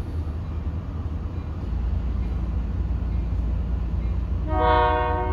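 Train rumbling along a street-running track, a steady low rumble. About four and a half seconds in, the locomotive horn starts a long blast, a chord of several tones.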